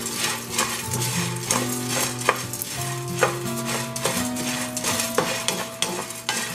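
In-shell sunflower seeds rattling and scraping in a nonstick frying pan as a wooden spoon stirs them while they dry-roast, a busy patter of quick clicks. Soft background music with held notes plays underneath.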